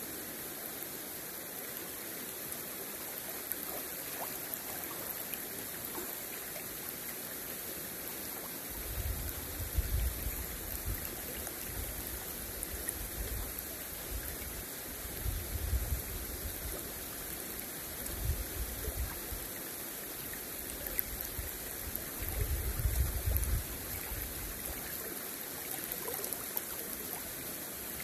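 Shallow river flowing over stones, a steady rushing and rippling of water, with a few brief low rumbles coming and going in the second half.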